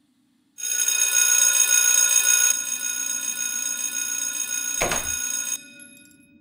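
Electric wall bell ringing loudly for about five seconds, with a single gunshot just before the ringing cuts off.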